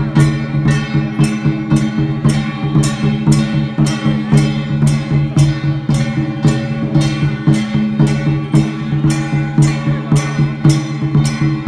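Traditional-style music with a steady percussion beat, about two sharp strikes a second, over sustained pitched tones.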